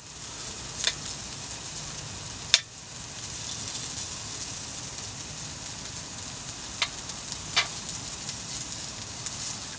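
Sausages and a burger sizzling in a frying pan on a gas camping stove, with a few sharp spits and pops; the loudest pop comes about two and a half seconds in.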